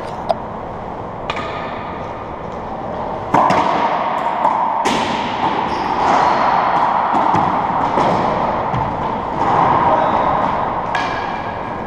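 Racquetball rally: sharp cracks of racquets hitting the ball and the ball smacking off the court walls, a dozen or so irregularly spaced hits, each ringing briefly in the enclosed court's echo.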